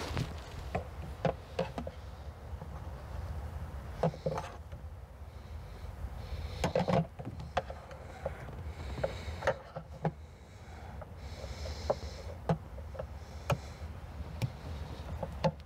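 Irregular small clicks and knocks of hands and tools working at a car's trunk lift support and its mounting, a fiddly fit that is not going in easily. A low steady hum runs underneath.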